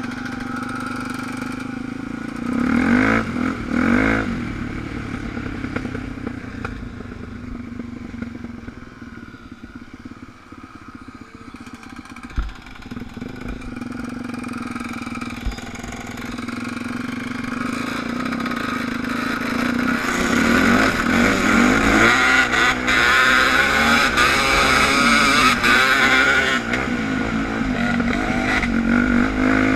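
Suzuki DR350 trail bike's single-cylinder four-stroke engine heard from on board: two short revs near the start, easing to a quieter stretch midway with one sharp knock, then building up under throttle and staying loud through the last third.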